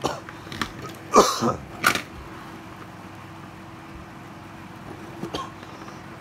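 A man coughs, a short rough burst about a second in. Several short clicks and knocks come around it, and a faint one comes near the end.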